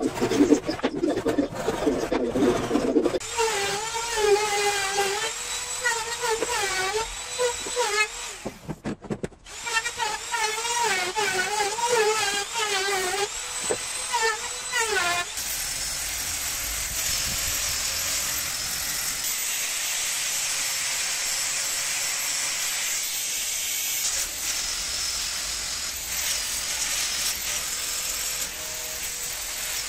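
A hand saw rasping through wood for a few seconds, then a trim router running and cutting wood, its whine wavering in pitch as it is fed through the cut. From about halfway it gives way to the steady whir and hiss of an electric orbital sander working on a pine frame.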